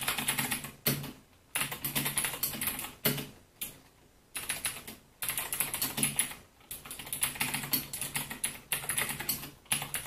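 Fast typing on a 60% mechanical keyboard with Gateron Blue clicky switches: dense runs of sharp, high clicks in bursts of a second or two, with short pauses between them.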